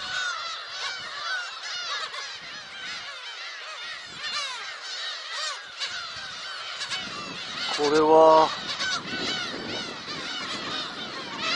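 A large flock of black-tailed gulls calling continuously as they circle overhead, many overlapping mewing calls at once, with one louder call close by about eight seconds in.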